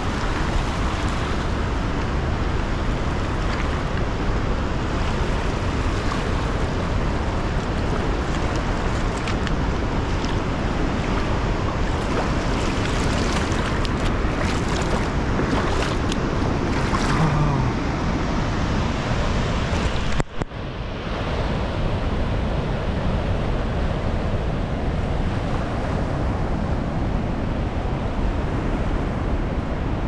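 Steady rush and roar of water from Målselvfossen, a large river waterfall with rapids. About twenty seconds in, the sound dips for an instant.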